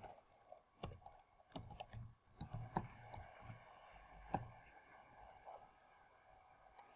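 Faint keystroke clicks from a computer keyboard as a short search phrase is typed: quick runs of keys in the first three seconds or so, then a few single taps.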